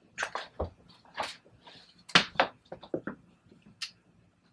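Handling noise as a kitchen knife is set down and knife boxes and papers are moved about on the counter: a string of irregular clicks, taps and light rustles, the loudest knock about two seconds in.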